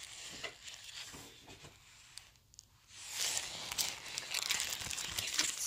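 Clear plastic photo-album sleeves crinkling and rustling as the pages are handled and turned, with a few light ticks at first and a dense, crackly rustle through the second half.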